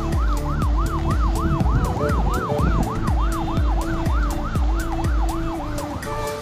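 Background dance music with a steady beat and held synth notes, over which a siren-like sound sweeps up and down about four times a second; the siren sound stops near the end.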